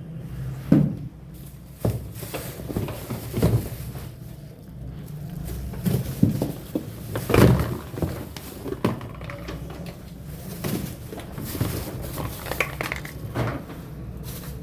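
Supplement parcel being unpacked by hand: irregular knocks, clunks and rustling as containers and packaging are picked up and set down, over a steady low hum.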